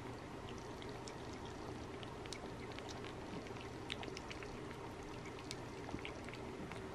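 Cat licking a lickable puree treat from a squeeze tube: many small, wet tongue clicks and smacks, faint over a steady low background hum.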